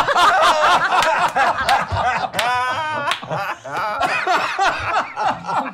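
A group of people laughing together, several voices at once.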